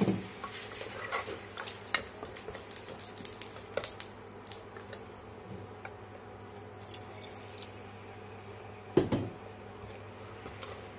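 Steel ladle stirring a thin, watery curry in an aluminium pressure cooker: liquid sloshing with scattered clinks and scrapes against the pot, and louder knocks at the start and about nine seconds in. A steady low hum runs underneath.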